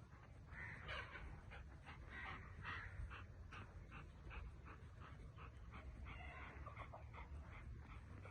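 German shepherd dog panting faintly, a quick even run of breaths, several a second.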